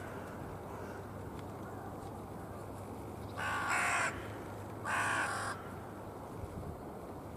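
Hooded crow cawing twice, two harsh calls of about half a second each, a second and a half apart, about halfway through.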